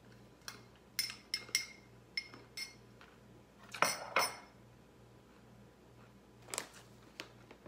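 A metal spoon clinks against a small ceramic bowl several times in quick succession. About four seconds in, the bowl is set down on a stone countertop with two louder knocks, and there is one more knock near the end.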